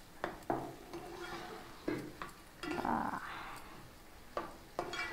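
Metal spatula stirring soya chunks in curd through a pot of frying rice masala, with irregular scrapes and knocks against the pot and a light sizzle about halfway through.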